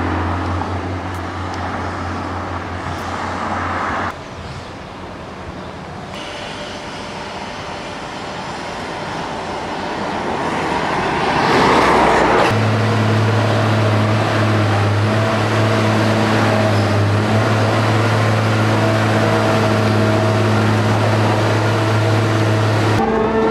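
Machine site noise in several cut-together stretches. First comes a steady low drone, then a wash of noise that swells. From about halfway through, a steady low hum with overtones: the Schaeff ITC 312 tunnel heading machine's power unit running.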